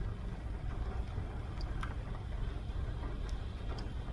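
Gusty wind buffeting the microphone as a steady low rumble, with a few faint sharp ticks scattered through it.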